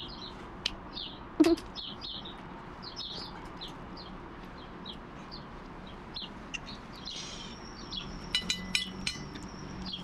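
Small birds chirping over and over, short high calls scattered throughout. A short sharp sound stands out about a second and a half in, and a quick run of rapid clicking comes near the end.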